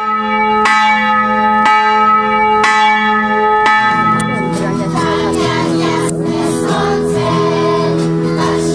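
A bell tolling, struck about once a second with a long ringing tone, joined and taken over by a choir singing from about four seconds in.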